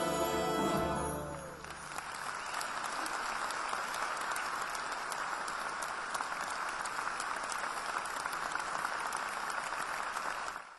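Accordion and symphony orchestra playing a sustained chord that ends about a second and a half in, followed by a large audience applauding steadily.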